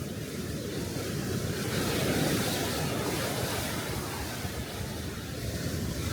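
Sea waves washing onto the beach, a steady rush of surf that swells about two seconds in and eases off, with some wind on the microphone.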